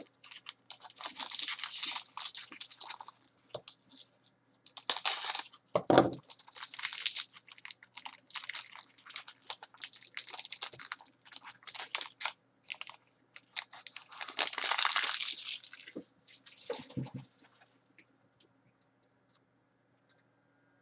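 A trading-card pack's foil wrapper being torn open and crinkled by hand, in crackly bursts of rustling, with a couple of dull thumps of handling against the desk. The rustling stops a few seconds before the end.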